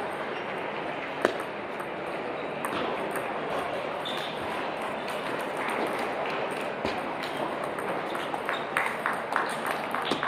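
Table tennis balls clicking off bats and tables in a large hall, over steady background hall noise. One sharp hit comes about a second in, and a quick run of hits near the end as a rally gets going.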